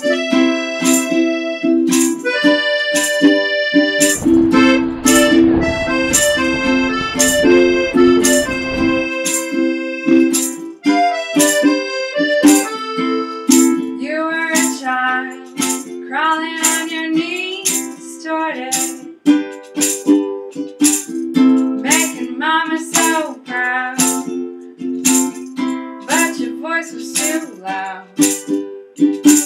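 Piano accordion and ukulele playing a song together, the accordion holding steady chords under regular ukulele strums. A wavering melody line comes in partway through. A rushing noise runs under the music for a few seconds near the start.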